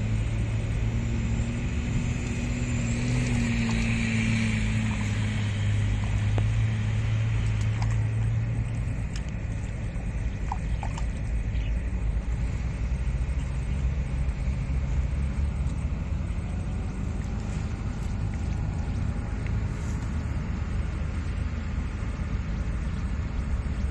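A low, steady engine hum with rumble, which eases off about nine seconds in and runs on more quietly.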